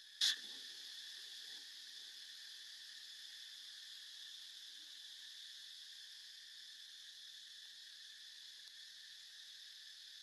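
Steady, shrill chorus of insects droning on several high pitches, with a single sharp knock about a quarter second in.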